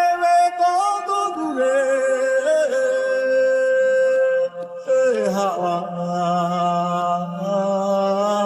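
A Bengali song with a male voice singing long, drawn-out notes over a soft backing. One note is held for a couple of seconds, then, after a short break about four and a half seconds in, a new phrase starts with a downward slide.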